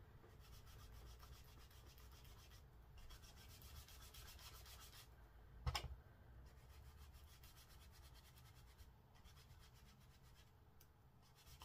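Faint rubbing of a stencil brush working ink into cardstock in small circular strokes, with one light tap about six seconds in.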